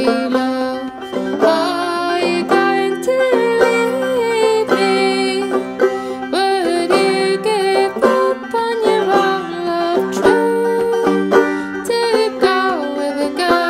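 Old-time folk recording: an open-back banjo picked in a steady rhythm, with a melody of long held, gently sliding notes over it.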